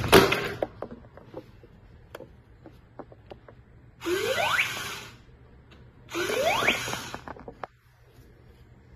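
Pink remote-control robot dog toy: plastic knocking as it tumbles at the start, light clicks, then two rising whirs about a second long each, around four and six seconds in.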